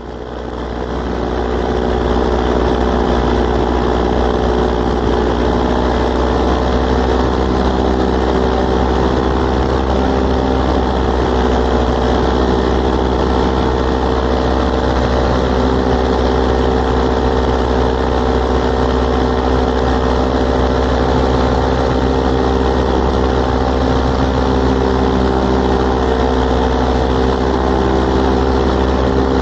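ScoutZero electric paramotor's motor and propeller running steadily in flight, an even drone of several steady tones over a low rumble.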